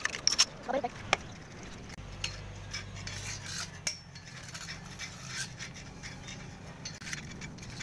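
Light metallic clinks, taps and rubbing, as of metal parts or tools being handled, with a low steady hum that starts about two seconds in.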